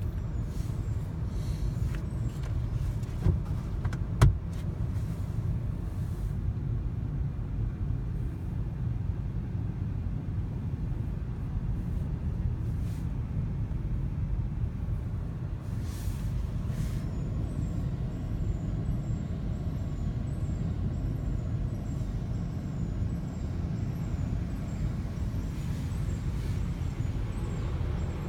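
Automatic car wash working over the car, heard from inside the cabin: a steady, muffled rumble of spraying water and machinery on the body. Two sharp knocks sound about three and four seconds in.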